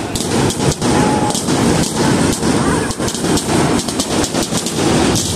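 Aerial fireworks going off in quick succession: a dense, continuous crackle of many small reports with louder bangs mixed in.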